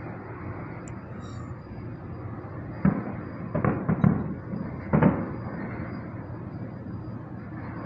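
Fireworks bursting: a cluster of about five sharp bangs in the space of two seconds, starting about three seconds in, over steady background noise.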